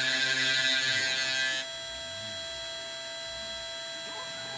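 Eleksmill desktop CNC mill running its job: the spindle motor gives a steady whine, a loud hiss over it cuts off about a second and a half in, and faint low rising and falling tones follow as the stepper motors drive the cutter in a spiral through the air before it reaches the workpiece.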